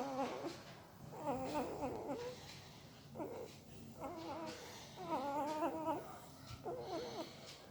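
Newborn pariah dog puppy whimpering in its sleep: a series of about six short, wavering whines, each under a second long, with brief pauses between.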